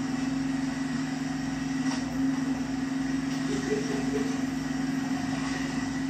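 An engine running steadily at a constant speed, a low even drone with no change in pitch.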